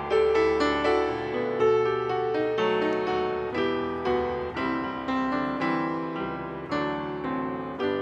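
Grand piano played solo, a melody over chords with each struck note ringing and fading, as the introduction to a song.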